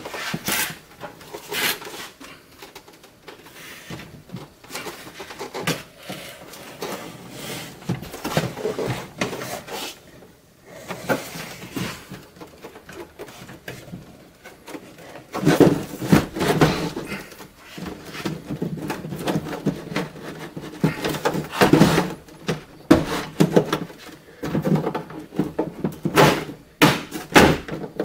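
A Senville Leto mini-split indoor unit being lifted and hung on its steel wall-mounting bracket: irregular rustling, scraping and knocking of the plastic casing against the bracket and wall. The knocks and clunks grow louder and come more often in the second half, as the unit is set onto the bracket.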